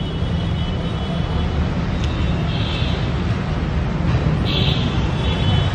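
Busy street traffic noise: a steady rumble of engines with two brief hisses, one near the middle and one just before the end.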